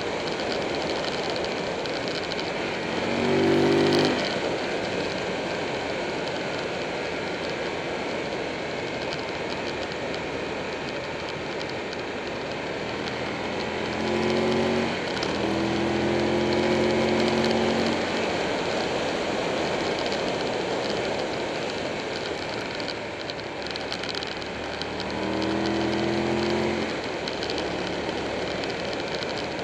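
Wind and road rush over a bike-mounted camera at speed, with the Buell 1125R's V-twin engine coming up in pitch three times as it accelerates out of the bends.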